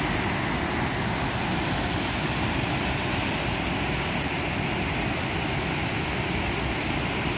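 Ohiopyle Falls on the Youghiogheny River: whitewater pouring over the falls and through the rapids below in a steady, unbroken rush.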